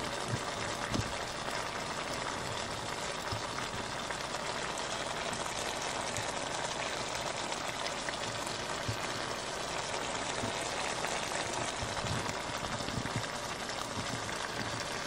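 Skillet of shrimp, turkey sausage and boiled eggs simmering in sauce on the stove: a steady bubbling sizzle with small scattered pops.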